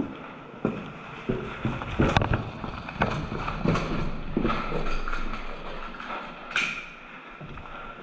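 Footsteps on a gritty bare-concrete floor, about one step every two-thirds of a second, with two sharper clacks of gear, easing off near the end.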